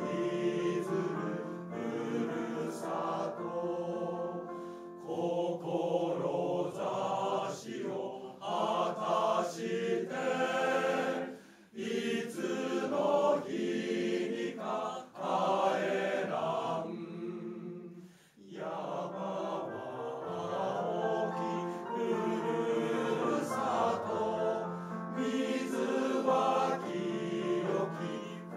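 Men's choir singing a slow piece in parts, with a few short pauses between phrases, the longest about two-thirds of the way through.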